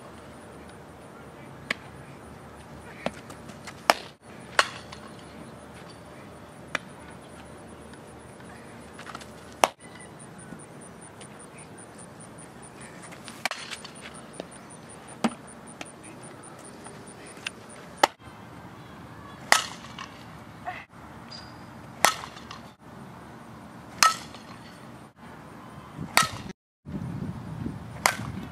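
Sharp knocks of a softball striking glove and bat, single cracks scattered through and then coming about every two seconds in the second half, over a faint high pulsing buzz.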